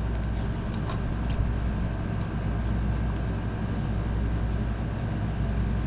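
A steady low mechanical hum with a faint high whine above it, and a few faint clicks about a second, two seconds and three seconds in.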